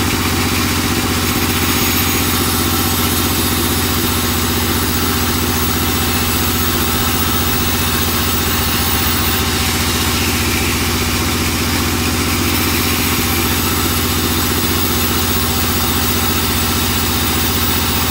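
Sawmill saw machine running steadily, cutting teak boards as they are fed through. Its motor gives a constant drone, with a hiss from the blade on top.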